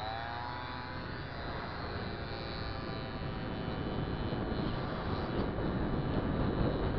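Derestricted two-stroke scooter engine running at speed, its pitch wavering in the first second, under a rush of wind on the microphone that grows steadily louder.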